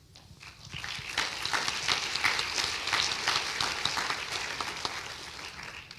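Audience applauding. It builds up within about a second, then thins out and dies away near the end.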